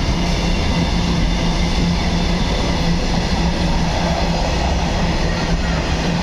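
A freight train's covered box wagons rolling past at speed, a steady loud noise of wheels on the rails with a constant low hum underneath.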